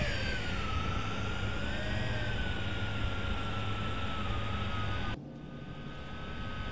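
Tarantula X6 quadcopter's motors and propellers whining in flight, the pitch drifting slowly up and down with throttle, over a noisy hiss. The sound drops abruptly about five seconds in and the whine carries on more faintly.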